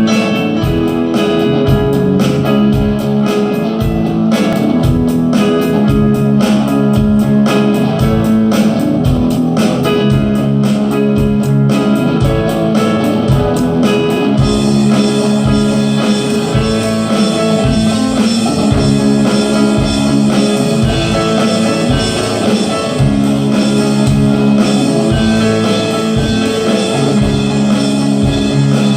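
Music with a steady beat and sustained notes, continuous and loud; about halfway through, the upper range turns brighter and hissier.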